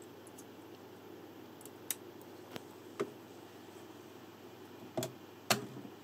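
Light clicks of hard 3D-printed plastic parts being handled and pushed together on printed pegs, then two louder knocks near the end as the joined piece is set down on the printer bed.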